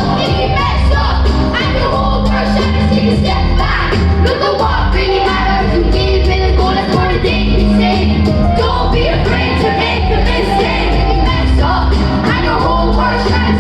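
A band playing a pop-rock song: a singer over a steady drum beat and held bass notes.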